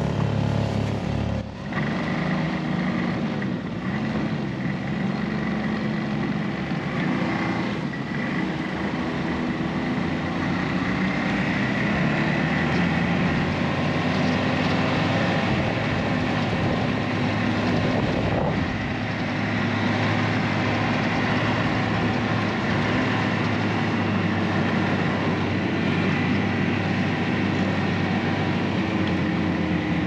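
Ski-Doo Expedition snowmobile engine pulling away about a second and a half in, then running steadily at cruising speed, with wind noise.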